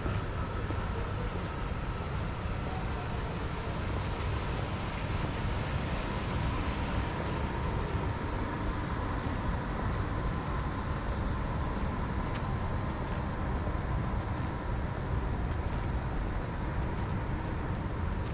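City street ambience: a steady low traffic rumble with a faint, steady high hum. About five seconds in, a swell of hiss rises and fades, like a car passing.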